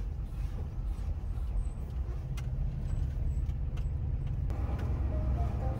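Steady low rumble of a Mercedes 4x4 expedition truck's diesel engine and tyres, heard from inside the cab while driving slowly on a gravel road, with a few light clicks and rattles. Music comes in faintly about four and a half seconds in.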